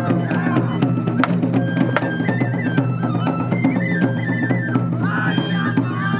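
Japanese lion-dance festival music (shishimai hayashi): a high bamboo flute melody moving in steps over frequent drum strokes.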